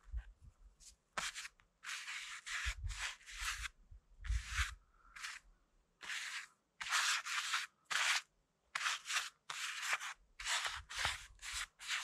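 A run of short, scratchy rubbing and scraping strokes from handling painting materials while setting up to paint, coming in irregular bursts of roughly two a second with brief gaps between them.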